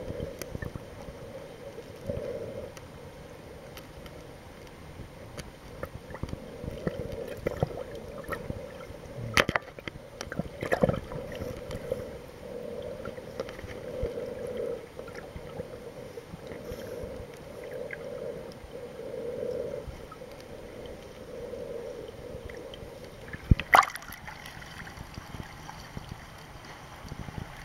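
Underwater sound heard through a camera's waterproof housing: steady muffled water noise with a wavering low hum and gurgling. A few sharp knocks come through, the loudest near the end as the camera comes up to the surface.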